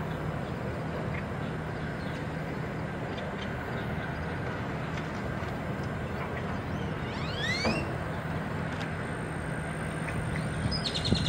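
Steady low mechanical hum over a constant outdoor noise. A brief rising high call comes about seven seconds in, and short high chirps come near the end.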